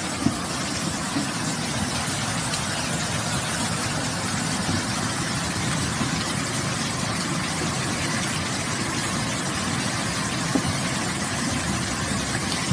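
Steady rushing noise of heavy rain and floodwater, with the low rumble of car engines as cars drive through the flooded street.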